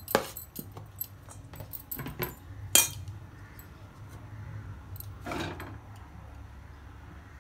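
Metal spoon clinking and scraping against a stainless steel bowl while mixing grated potato, cabbage and carrot: a string of light clicks with one sharp clink near three seconds in, then a softer scrape a couple of seconds later.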